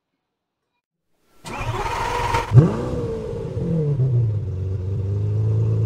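Engine start sound effect. About a second and a half in there is a second of noisy cranking. Then the engine catches with a sharp rev that swoops up and falls back, and it settles into a steady idle.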